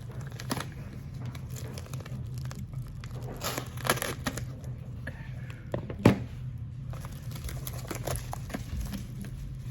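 Packaging being cut open with a knife and handled: crinkling and tearing with scattered small clicks, and one sharp knock about six seconds in.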